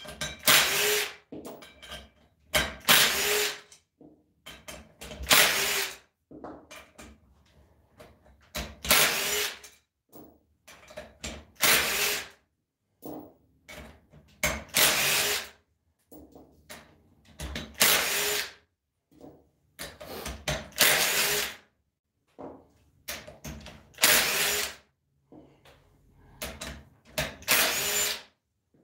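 Cordless driver spinning socket-head cap screws out of a bolt-together torque converter's cover: about ten short runs, each under a second and a few seconds apart, with small knocks in between.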